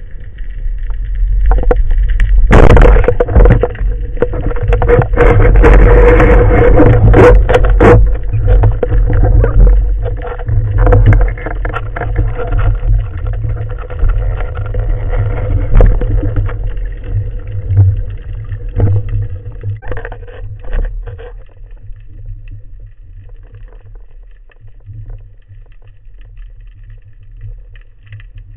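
Muffled underwater noise heard through a camera housing on a speargun: a steady low rumble of water moving against it, with a loud rushing stretch and sharp knocks a few seconds in and scattered knocks later, growing quieter near the end.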